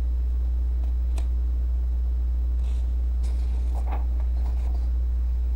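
Steady low background hum, with a few faint taps and rustles of a paper sheet being handled about a second in and again past the middle.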